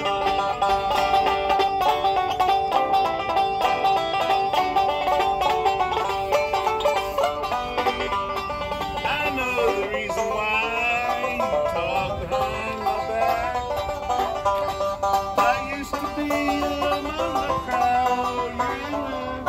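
Banjo played solo, a steady, busy run of picked notes.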